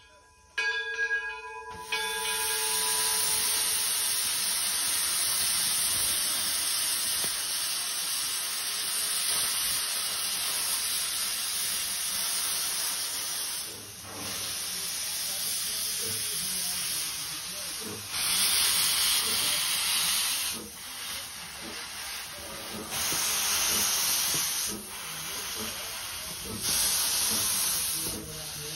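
Steam locomotive Edison No. 1, a 4-4-0, gives a short whistle toot at the start, then a steady hiss of escaping steam that swells in three louder surges over the last ten seconds.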